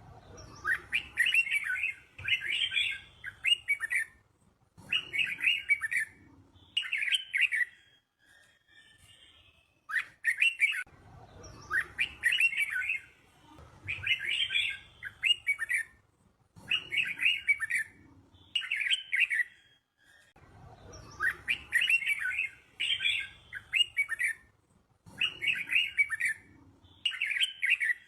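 Red-whiskered bulbul singing short, bright, warbling phrases with brief pauses between them. The same run of phrases repeats about every ten seconds, as in a looped training recording of a teacher bird.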